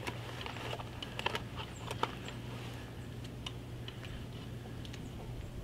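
Faint, irregular small clicks and ticks of handling as a plastic thread spool is wound around a bowstring to wrap on thread, most of them in the first two seconds and fewer after.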